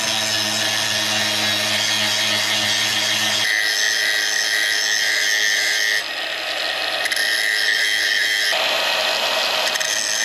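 Angle grinder with an abrasive disc grinding down a weld bead on the steel anchor ear of an automatic transmission's kickdown band, smoothing the built-up weld. Steady motor whine and grinding hiss whose tone changes abruptly a few times.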